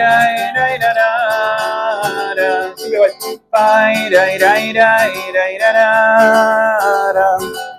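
A man singing long held notes of a Uruguayan murga melody over a strummed nylon-string classical guitar, in two phrases with a short break about three seconds in.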